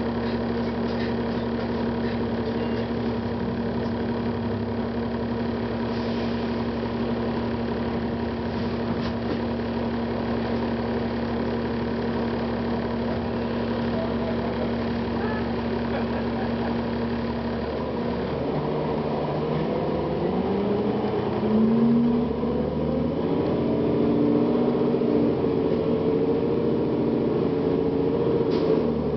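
Cummins ISL diesel engine of a 2009 Gillig Advantage transit bus idling steadily, then revving up as the bus pulls away about two-thirds of the way through. Its pitch rises in steps as the Allison automatic transmission shifts up.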